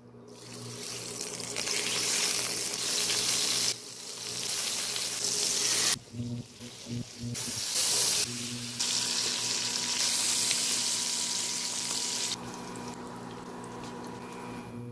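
Slices of pork belly sizzling in hot oil in a nonstick wok: a loud, steady frying hiss with short breaks about 4, 6 and 7.5 seconds in, quieter over the last couple of seconds.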